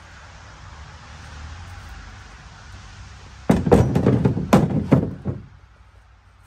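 Split firewood logs dropped into a wheelbarrow: a quick run of about half a dozen wooden knocks and clunks starting about three and a half seconds in and lasting about two seconds. Before it, only a steady soft hiss.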